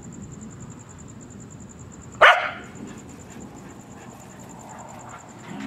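A dog barks once, sharply, about two seconds in.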